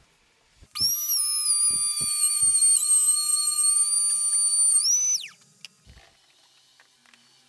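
Handheld trim router switched on and run: a loud high whine whose pitch sags slightly as the bit cuts into the wood, rises briefly as it comes free, then winds down and stops about five seconds in.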